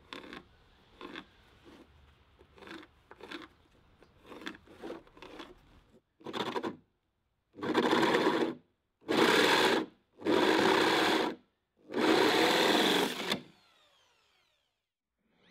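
A power saw cutting 12 mm OSB board in five steady bursts of about a second each, each one breaking off abruptly. Before them come several light taps and knocks as the board and straightedge are set in place.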